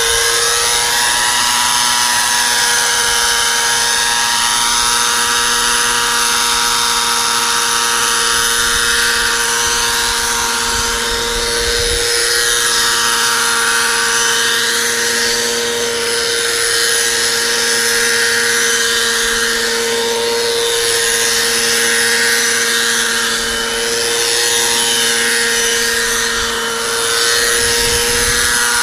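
Scale Bell 47G radio-controlled model helicopter, its small engine and rotors running steadily as it hovers and manoeuvres low. The high whine rises and falls every few seconds as it moves.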